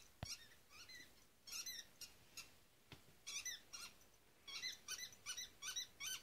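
A squeaky dog ball squeaking again and again in quick runs, a recording of a dog chewing the toy played back through laptop speakers. Two short knocks come about a quarter second in and about three seconds in.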